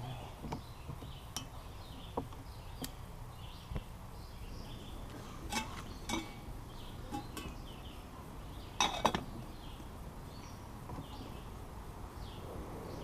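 Camp cookware and utensils being handled: scattered light clinks and knocks, with a few louder clatters about halfway through and the loudest about nine seconds in. Faint high chirping runs underneath.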